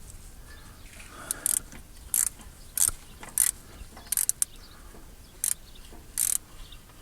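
Hand ratchet clicking in a series of short strokes, a burst every half second to a second, as a loose torque converter bolt, found finger tight, is tightened; the loose bolt is taken for the cause of a low-rpm clunking.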